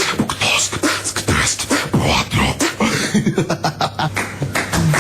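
A man beatboxing: a fast, unbroken run of mouth-made percussion, sharp clicks and hissing snare-like strokes over short low kick-like thumps.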